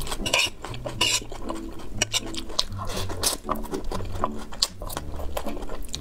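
Close-up mouth sounds of sauced instant noodles being slurped and chewed: repeated wet smacks and short sucking slurps, a few of them louder and hissier.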